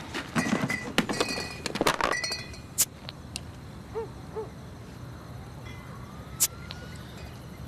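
Glass beer bottles clinking against each other as they are rummaged out of a plastic cooler box, in a burst of clinks over the first couple of seconds, followed by two single sharp clicks a few seconds apart.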